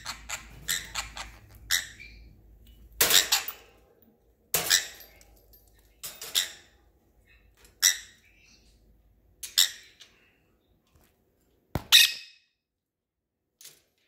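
Small pet parrot giving short, sharp, high-pitched squawks, one every second or two. There is a sharp click about twelve seconds in.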